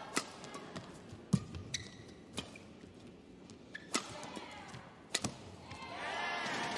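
Badminton rally: sharp racket strikes on the shuttlecock and footfalls on the court, single cracks at irregular gaps of about half a second to a second and a half. Near the end, crowd noise swells as the point is won.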